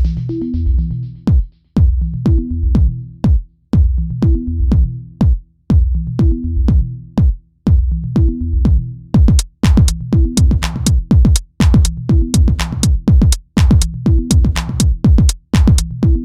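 Electronic dance music with a drum-machine beat and a repeating bass line; the drum hits come faster about nine seconds in.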